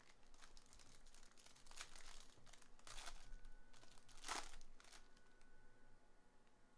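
Foil baseball-card pack wrapper crinkling and tearing as it is opened by hand: several short crinkles and rips, the loudest a little past four seconds in, then only faint handling of the cards.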